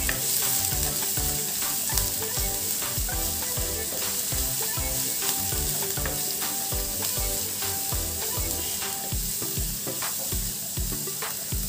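Chopped garlic, ginger and green chillies sizzling steadily in hot oil in a nonstick frying pan, stirred with a spatula.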